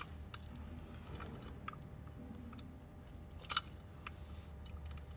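Small metal parts of a forklift hand-brake lever being handled and fitted by gloved hands: scattered light clicks and taps, the sharpest about three and a half seconds in, over a steady low hum.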